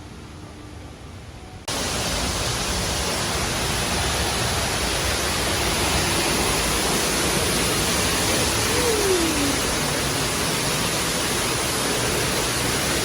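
Steady, loud rushing noise that cuts in abruptly about two seconds in and holds even throughout, with a faint short falling tone near the middle.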